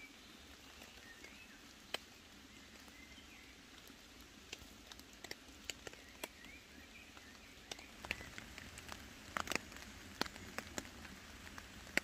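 Faint patter of scattered raindrops dripping onto leaves and ground, the taps coming more often and a little louder in the second half.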